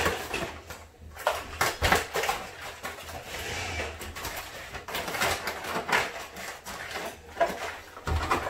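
Snow crab legs being turned over and handled in a baking pan: a series of light clicks and knocks, with a soft rustle about three to four seconds in.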